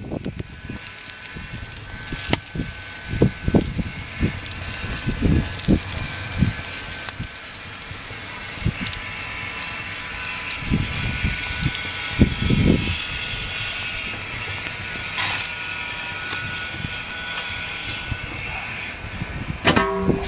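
Wood and charcoal fire crackling in a kettle grill, with many scattered sharp crackles over a steady hiss and several low thumps.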